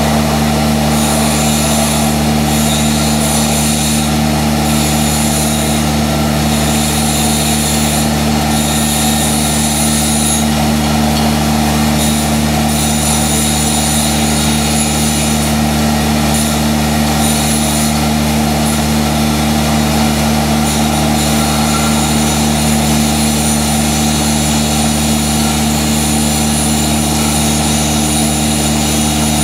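Steady machine hum with several fixed low tones, the loudest sound throughout, over which the hissing crackle of a stick-welding arc burning a 7018 electrode comes and goes.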